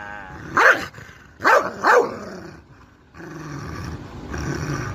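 Rottweiler giving three short woofs, about half a second, one and a half and two seconds in, then a low drawn-out growl near the end, vocalising in play.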